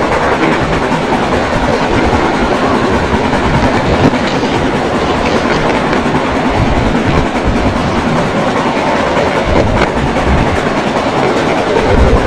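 Model railway train running along its garden track, heard from on board: a steady rattle and clickety-clack of wheels on rails. The low rumble grows louder near the end as it runs onto a wooden trestle bridge.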